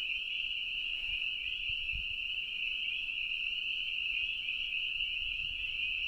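Dense, steady chorus of spring peepers, many small frogs calling at once in a continuous high-pitched peeping.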